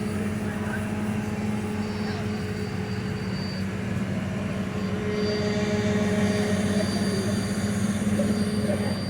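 Locomotive engine running steadily with a low hum and a thin high whine that comes and goes.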